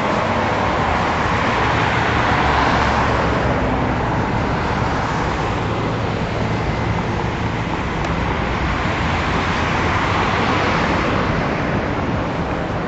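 Steady road traffic on a busy multi-lane road: a continuous wash of tyre and engine noise, swelling as cars pass close about a third of the way in and again near the end.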